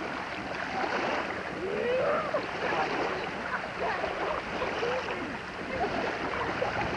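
Beach ambience at the water's edge: small waves washing in shallow water and a child splashing, with distant voices of children and adults calling across it.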